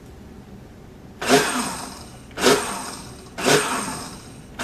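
Hamilton Beach countertop blender pulsed three times, about a second apart, with a milky liquid in its jar: each pulse starts suddenly as the motor spins up, then winds down in falling pitch.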